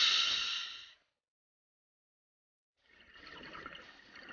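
Scuba diver breathing through a regulator underwater: a hissing breath that fades out about a second in, then after a pause a rougher, crackling rush of exhaled bubbles near the end.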